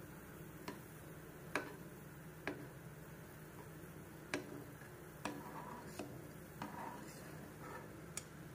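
Steel pan of jaggery syrup at the boil with a metal spatula in it: sharp, irregular clicks, about one a second, over a low steady hum.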